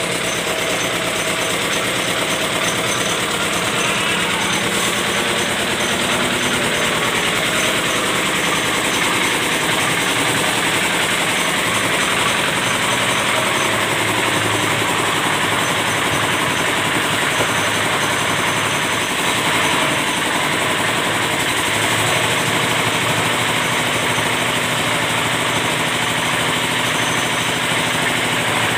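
Small stationary engine running steadily at a constant speed.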